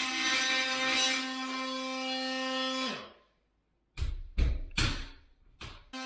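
Oscillating multi-tool cutting through wooden door shims, a steady high buzz that winds down as the tool is switched off about three seconds in. A few sharp knocks follow.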